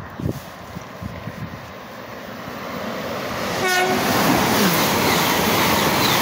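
A train approaching through the station, its rumble building from about three seconds in and staying loud to the end. A short horn note sounds just before the rumble peaks.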